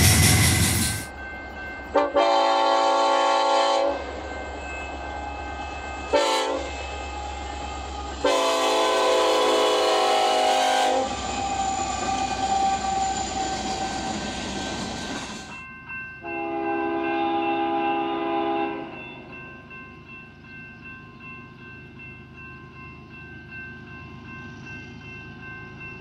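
Freight train locomotive air horn blowing several blasts, long and short, at a grade crossing: a long blast, a brief one, another long one, and a quieter blast later on. It opens with a second of freight cars rolling past, and a faint steady hum remains at the end.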